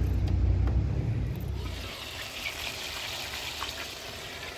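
A low rumble for the first couple of seconds, then food sizzling steadily as it fries in a frying pan covered with a glass lid.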